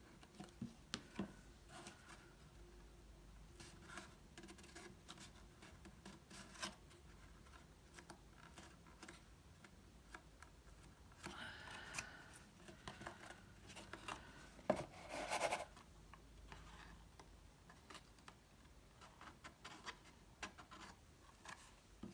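Cardstock pieces being handled and pressed together: faint paper rustling and rubbing with scattered light taps. A sharp click about fifteen seconds in is followed by a louder rustle.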